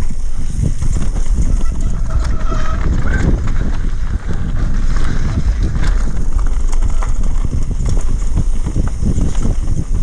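A mountain bike riding fast down a dirt and rock trail: tyres rolling over loose ground, with frequent knocks and rattles from the bike over bumps, under heavy wind noise on the camera's microphone.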